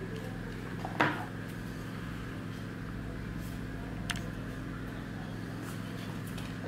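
Trading cards handled by hand and laid down, with a sharp tap about a second in and a lighter click about four seconds in, over a steady low hum.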